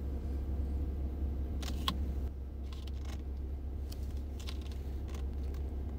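Kitchen room tone: a steady low hum with gas burners lit, broken by a few light clicks and a small metallic clink of cookware and phone handling, the clearest about two seconds in.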